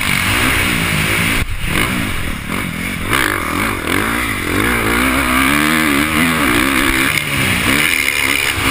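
Motocross bike engine revving up and down as the rider accelerates and backs off along the track, with a brief throttle cut about a second and a half in. A steady rush of wind runs over a helmet-mounted camera.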